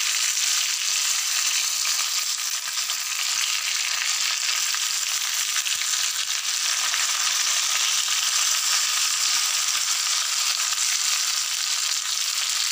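Stuffed brinjals shallow-frying in hot oil in a kadhai: a steady sizzle.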